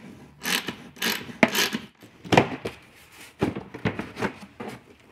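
A hard plastic golf-cart bag well being worked loose from the body and lifted out: an irregular series of scrapes, rubs and knocks of plastic, with a few sharp clicks.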